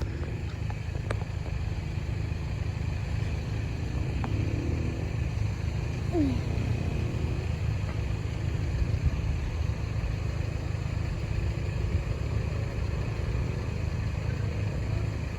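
Steady low rumble with no clear events.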